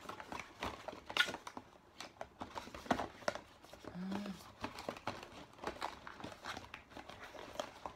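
Cardboard doors of an advent calendar being pried open and a small cardboard box worked out of its compartment, giving an irregular run of crinkling, scraping clicks. A short murmured voice sound about four seconds in.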